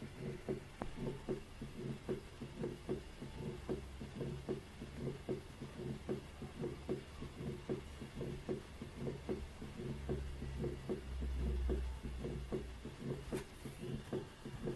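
Stethoscope recording of body sounds: a fairly regular run of short, soft low thumps, about three a second, over a steady low hum that swells briefly near the end.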